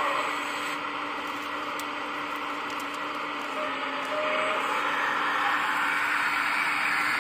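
Hydraulic pump of a 1/14-scale RC Volvo excavator running with a steady whine and hiss as the boom and bucket move. It grows louder about four seconds in.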